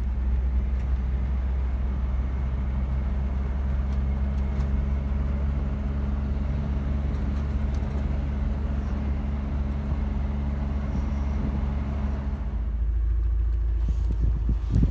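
Vehicle engine and road noise heard from inside the cab while driving, a steady low drone. About twelve seconds in the engine's tone drops away and a deeper, even rumble takes over.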